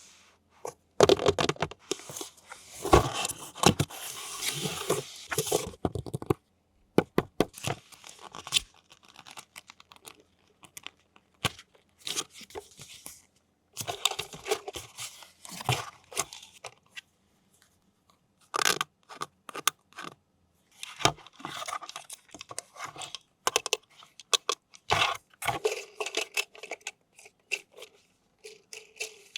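Toy packaging being torn open and handled: a long stretch of tearing and rustling near the start, then scattered clicks, taps and short rustles.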